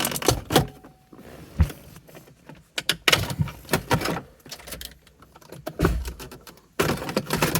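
Plastic interior trim pieces in a car's cabin being worked loose by hand: several bursts of clicking, knocking and rattling with short pauses between them.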